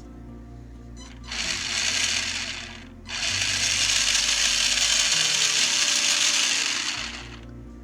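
RC truck's 540 20T brushed motor and drivetrain spinning up under throttle in two runs, a short one about a second in and a longer one of about four seconds. This is a test run, checking that the freshly installed motor and gears run right.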